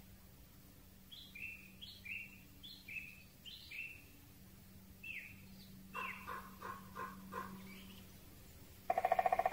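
Wild birds calling in a forest: a quick run of short, high, descending chirps, then a series of five harsher descending notes. Near the end a loud, rapid, evenly pulsed trill starts, over a faint steady hum.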